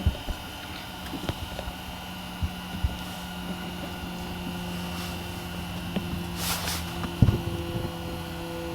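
A steady low mechanical hum with a few light clicks and knocks, a louder knock about seven seconds in.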